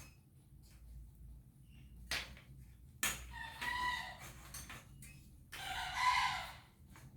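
Chickens calling, with short clucking calls and a longer rooster crow a little over five seconds in, the loudest sound.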